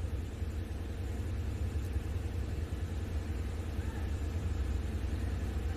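Steady low rumble with a faint, even hum over it: constant background noise of the hall and its sound system, with no distinct events.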